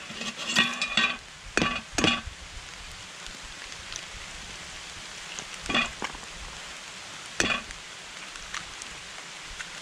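Potatoes and onions sizzling steadily in a Firebox 10-inch fry pan over a wood fire. A few sharp clinks and knocks come in the first two seconds, then two single sharp taps later on as eggs are cracked over the pan.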